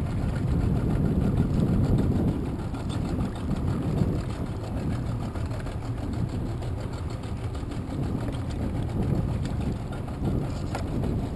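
Small boat's outboard motor running slowly at idle, a steady low rumble, with a short click near the end.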